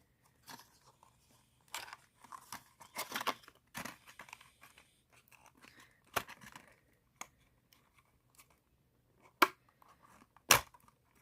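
Plastic bag around a diecast model car being handled and pulled open, with short bursts of crinkling and tearing. Later come a few sharp snaps, the loudest sounds.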